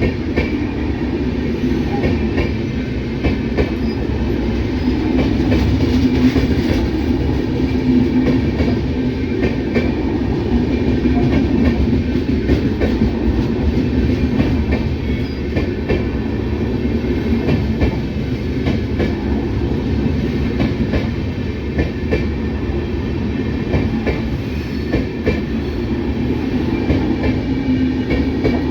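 A train rolling past: a steady low rumble of wheels on rails, with frequent clicks as the wheels clatter over rail joints.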